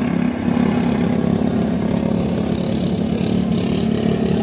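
Racing lawn mower engines running at speed: a steady engine drone that rises and falls slightly in pitch.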